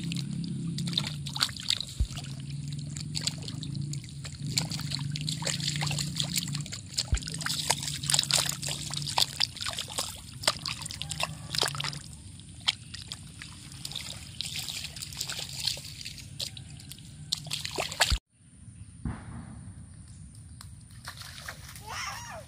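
Shallow muddy water sloshing and splashing as a small child's hands paddle and scoop in a rain puddle, with many quick wet splatters. The splashing grows quieter in the second half, and near the end the sound cuts out for a moment and returns softer.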